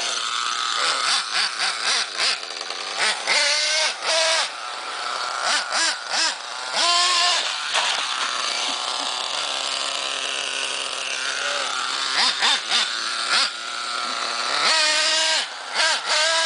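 Small two-stroke nitro engine of a 1/8-scale TNX5.2R RC truck revving up and down in repeated bursts, its pitch rising and falling with the throttle.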